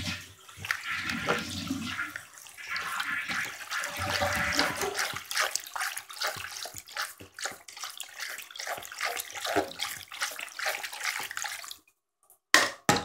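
Water swishing and sloshing in a plastic basin as a hand stirs it round to make a whirlpool. It breaks off about a second before the end, and two brief sharp sounds follow.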